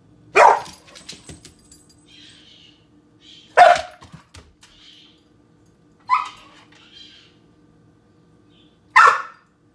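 A large dog barking at a cat: four single barks about three seconds apart.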